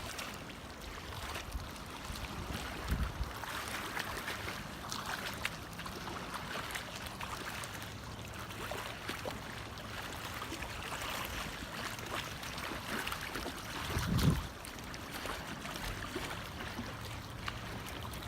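Wind-driven lake water lapping at a flooded shoreline, a steady wash of small waves. Gusts of wind buffet the microphone a few seconds in and again, louder, about fourteen seconds in.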